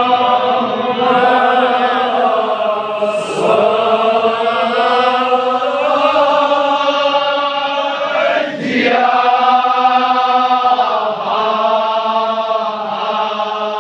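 Male voices chanting a Kashmiri marsiya, a Shia elegy in the pahalwani style, in long held melodic phrases with brief breaks about three and nine seconds in.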